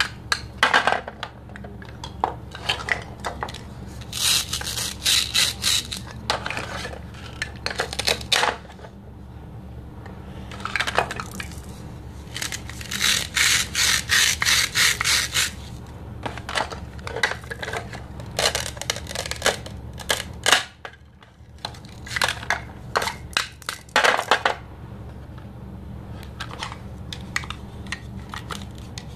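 Plastic toy fruit and vegetable halves being pulled apart and pressed back together. Their hook-and-loop (Velcro) pads rip in several drawn-out tears, the longest lasting about three seconds near the middle, between light clacks of hard plastic pieces.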